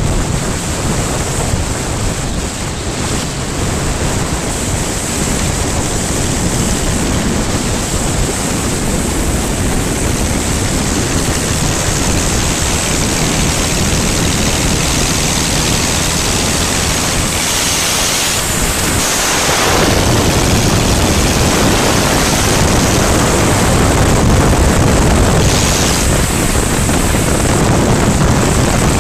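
Wind rushing over the microphone of a moving vehicle along with road noise, a steady dense rush that grows slightly louder after a brief dip about two-thirds of the way through.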